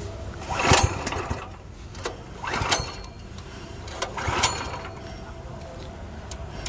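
Three short scraping, rattling noises, about two seconds apart, from the controls of a baby roller's Hyundai petrol engine being worked by hand, over a low steady hum.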